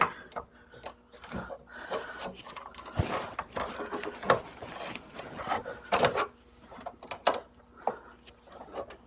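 Adjustable wrench scraping and clicking on an air conditioner's suction-line fitting in irregular knocks and rubs, as a loose, leaking refrigerant connection is tightened.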